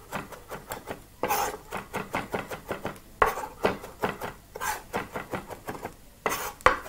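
Chef's knife chopping ginger finely on a wooden cutting board: quick knocks of the blade on the wood, several a second, with a few louder strokes.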